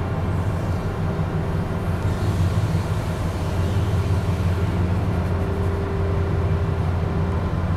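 Steady low drone of ship engines running.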